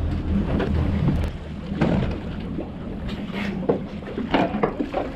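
Wind on the microphone and a steady low hum of the fishing boat's idling engine, which fades after about a second and a half, with scattered knocks and clatter on deck.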